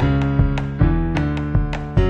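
Instrumental music with sustained notes and a steady beat, about two and a half strokes a second.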